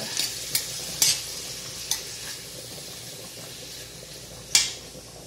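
Shrimp sizzling in melted butter in a stainless steel pan while a metal spoon stirs them, scraping and clinking against the pan. There are a few sharp clinks, the loudest about a second in and near the end.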